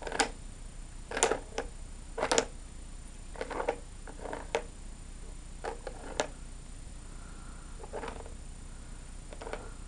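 A baby in a plastic baby walker making a string of short, scattered sounds, about ten in all: small grunts and mouth noises mixed with light taps and clicks on the walker's plastic toy tray.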